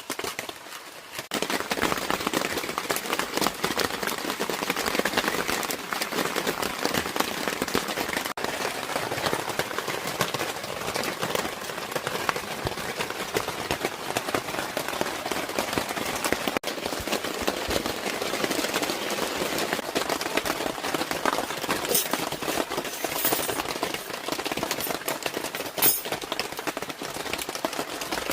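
Heavy rain falling in a dense, steady patter of countless drops. It comes in loud about a second in.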